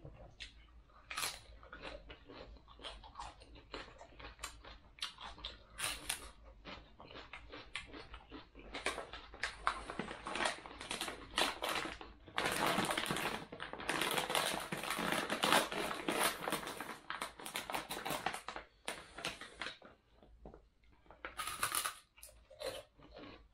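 Crispy fried catfish being eaten by hand: irregular clicks and crunching, with a denser, louder run of crunching from about halfway through.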